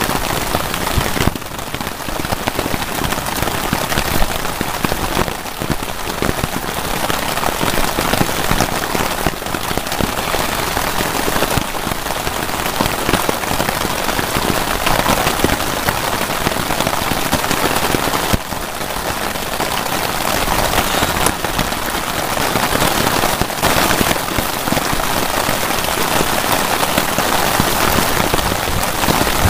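Steady rain falling on the fabric of a tent, heard from inside: a dense, continuous noise of many drops.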